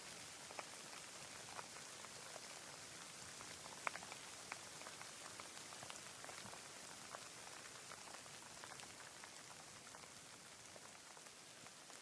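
Rain falling: a steady hiss with scattered separate drops ticking through it, the sharpest drop about four seconds in.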